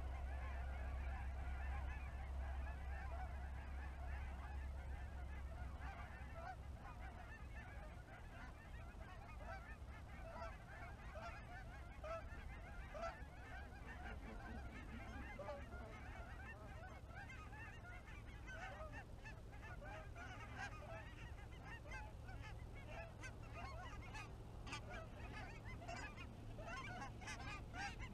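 A flock of geese honking overhead, many overlapping calls that grow busier in the second half as more birds arrive over the decoys.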